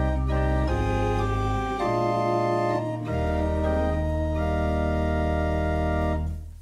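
Small pipe organ playing slow, held chords over deep bass notes, the harmony changing every second or so; the last chord is held for about three seconds, then released just before the end.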